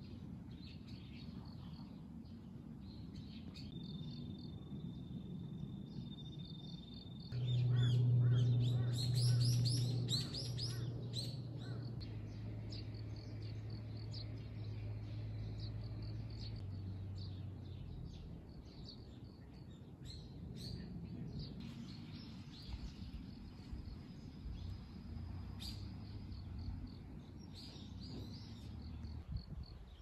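Outdoor countryside ambience with birds calling and chirping, the calls loudest in a burst about seven to ten seconds in, over a low steady hum that lasts about ten seconds. A thin, steady high whine, like an insect, comes in twice.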